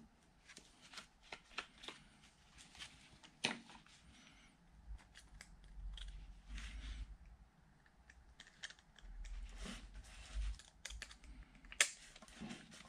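Faint clicking and clinking of steel gear-box parts and hand tools being handled on a workbench. Two sharper metallic clicks stand out, one about three seconds in and one near the end.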